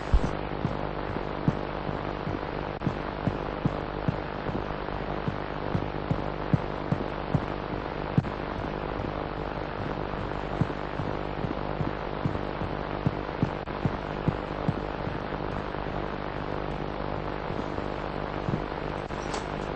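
Steady electrical hum with a hiss of static, broken by scattered short clicks that thin out in the last few seconds.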